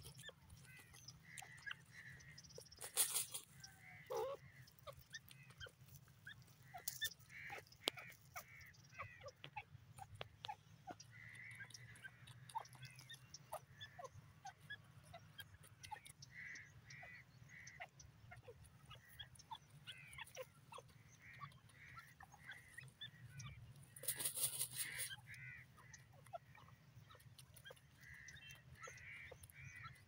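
Grey francolin giving soft short calls in quick runs of three to five notes, with scattered clicks of pecking in the soil. A brief rustling burst comes about three seconds in and another about 24 seconds in.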